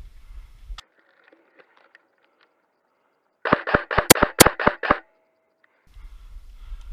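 Airsoft gun firing a quick string of about eight sharp shots over roughly a second and a half, with faint rustling of movement before and after.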